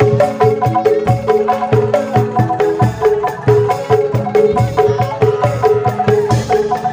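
Angklung percussion ensemble playing an instrumental dangdut tune: a wooden-barred xylophone and bamboo angklung carry a quick, even melody over steady drum hits, with a cymbal crash near the end.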